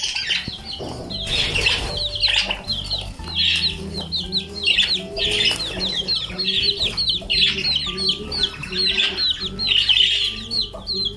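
Budgerigars chirping and chattering continuously, a rapid run of short, high chirps several times a second.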